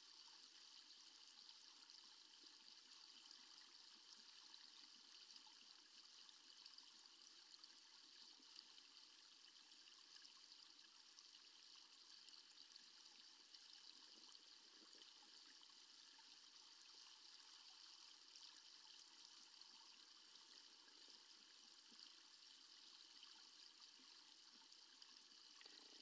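Faint, steady rush of water plunging over a check dam into the pool below, heard underwater and muffled through a waterproof camera housing.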